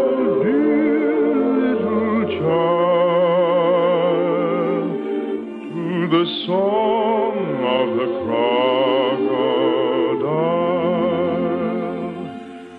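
Operetta song: a trained solo voice singing long held notes with wide vibrato over orchestral accompaniment, in a slow lullaby-like style. The music thins briefly a little after the middle and again right at the end.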